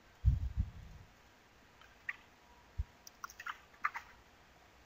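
A short burst of low, muffled thuds in the first second, then a few small sharp computer keyboard and mouse clicks as a dimension value is typed in, Backspace among the keys.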